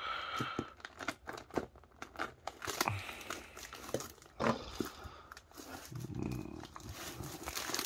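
Plastic wrapping on a parcel box crinkling and rustling as hands and a small knife work at it, with scattered sharp clicks and scrapes.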